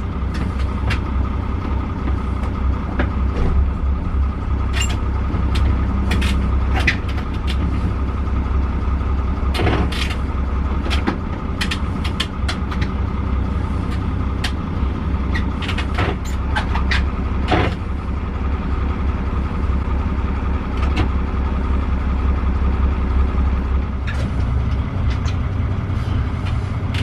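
A boat's inboard diesel engine running steadily, a low hum heard inside the wheelhouse, with occasional short knocks and clicks.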